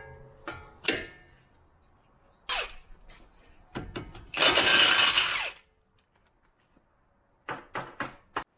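Sharp clinks and knocks of tools or metal parts being handled, with one loud rushing burst lasting about a second in the middle.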